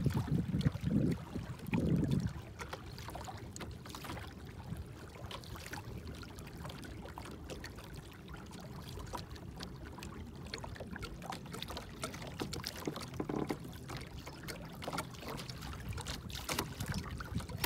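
Water trickling and lapping along the hull of a fishing kayak moving under an electric trolling motor, steady with small scattered splashes. Two or three low bumps come in the first two seconds.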